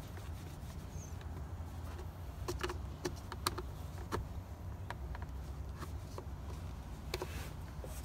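Scattered light clicks and scrapes of a small flathead screwdriver prying at the split line of a plastic steering-column shroud to release its clip tab, over a steady low hum.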